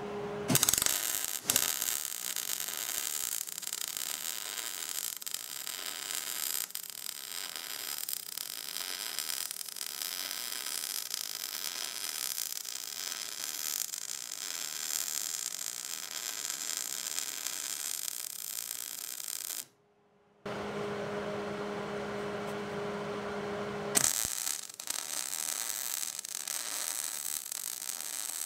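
MIG welder laying a bead on steel tubing: the steady crackle and sizzle of the wire-feed arc. About two-thirds through it stops, a steady low hum is heard for a few seconds, and then the welding starts again.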